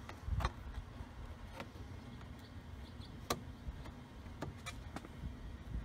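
Scattered light clicks and taps as a wooden door-trim piece is handled and its tabs slid into place on a car's door panel, the sharpest click about three seconds in, over a faint low background rumble.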